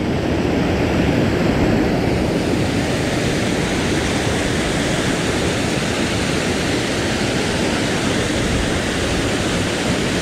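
Several small waterfalls pouring into a pool: a steady rush of falling water.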